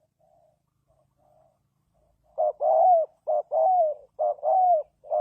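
Spotted dove cooing: a few soft faint notes, then from about halfway in three loud phrases, each a short coo followed by a longer one that bends slightly in pitch, with a fourth starting at the end.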